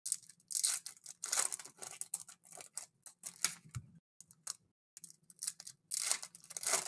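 Foil trading-card pack wrappers crinkling and tearing in the hands as cards are pulled out, a run of short crackly rustles with brief pauses, loudest about half a second in and again near the end.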